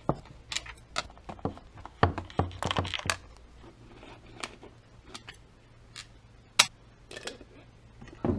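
Metal tools and parts clinking and knocking as they are handled, a run of irregular sharp clicks with one louder knock about two-thirds of the way through.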